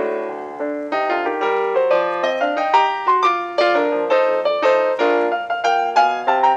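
Background music: a light piano melody, quick notes played at an even pace.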